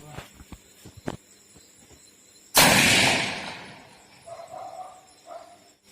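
A single gunshot about two and a half seconds in, dying away over about a second and a half, after a few sharp clicks. A dog barks a couple of times after the shot.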